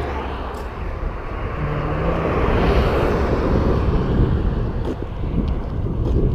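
A vehicle passing on the road, its tyre noise swelling to a peak about halfway through, with wind rumbling on the microphone.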